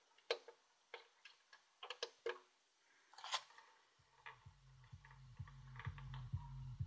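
Sharp clicks of the Crown XLS1000 amplifier's front-panel buttons being pressed. About four seconds in, low-pass-filtered bass music with a regular beat fades in from a Pioneer S-SLW500 subwoofer and grows louder as the amplifier's level knob is turned up.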